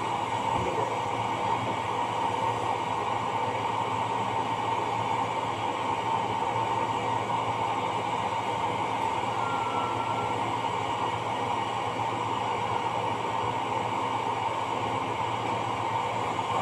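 Steady hum and hiss of running machinery, with a faint tone and no strokes or knocks.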